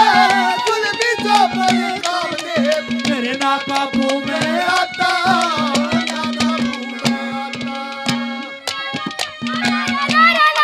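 Live instrumental interlude of Haryanvi ragini accompaniment: hand drums beat rapid, dense strokes under a sliding melody, over a steady low drone note that drops out and comes back several times.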